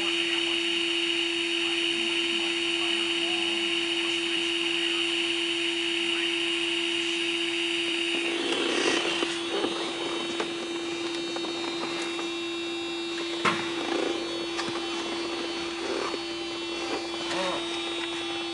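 A steady machine hiss over a constant hum, like a small electric tool running, cuts off about eight seconds in. Then come handling rustles and a sharp click a few seconds later, with the hum still going.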